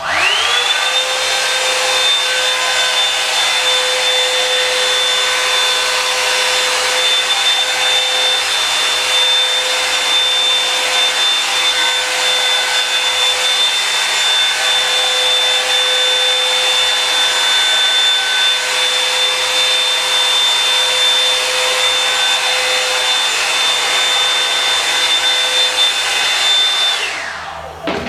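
Revlon One Step blow-dryer brush running: its fan motor spins up right at the start into a steady high whine over a rush of air, holds steady while brushing through hair, then winds down and cuts off near the end.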